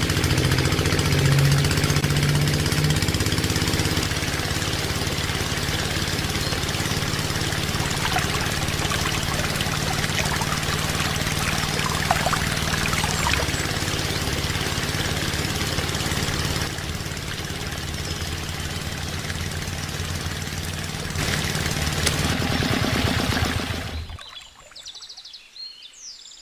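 Small electric motor whirring steadily as it belt-drives a miniature water pump, with water spraying and splashing into the model paddy. It cuts off about 24 seconds in.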